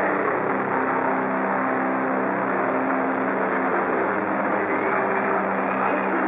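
Live metal band playing loud. Distorted electric guitars hold low sustained notes in a dense, steady wall of sound.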